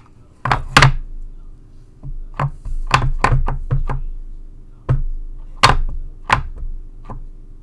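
Clear acrylic stamp block knocking down onto a Stampin' Up! Classic ink pad, about a dozen irregular taps, as a photopolymer stamp is inked.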